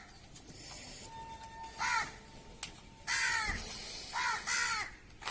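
Crows cawing: about five harsh, separate caws spread over a few seconds, two close together near the end.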